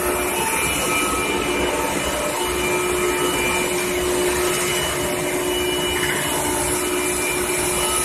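Steady factory machinery noise along a steel-pipe roller conveyor line: a constant din with a few steady whining tones over a low rumble.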